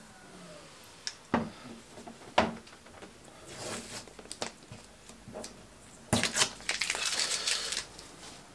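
Two sharp knocks and a few small clicks as parts are handled against fibreglass bodywork, then about two seconds of masking tape being pulled and torn, crackling.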